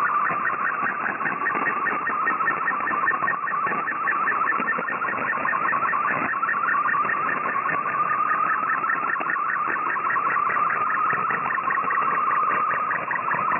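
MFSK64 digital picture transmission received on shortwave: a buzzy, warbling data tone that slowly rises in pitch, with a rapid regular ticking over a steady hiss of band noise, as the image is sent line by line.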